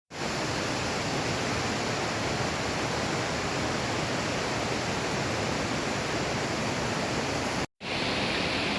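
Steady rush of running water echoing through a limestone cave, heard as an even hiss; it cuts out for a moment near the end.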